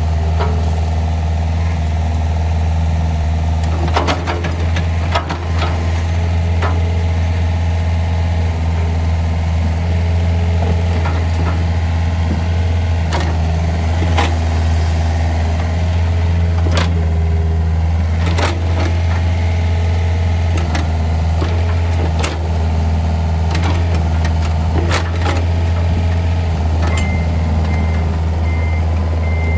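Takeuchi TB145 compact excavator's diesel engine running steadily, with a few sharp knocks and clanks along the way. Near the end a travel alarm starts beeping at an even pace.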